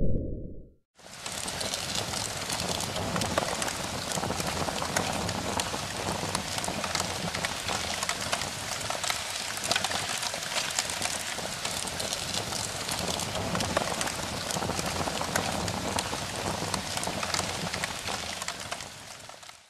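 Steady rain falling, a dense patter of drops, starting about a second in and stopping just before the end.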